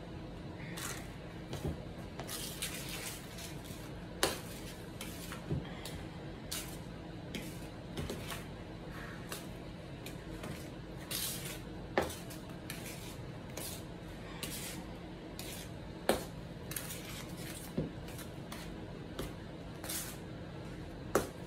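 A spatula stirring whipped topping in a metal mixing bowl: soft squishing and scraping, with irregular clinks and taps against the bowl and a few sharper knocks.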